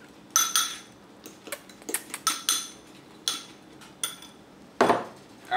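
A metal spoon clinking against a ceramic bowl several times at an uneven pace while stirring pancake batter. A duller knock comes near the end.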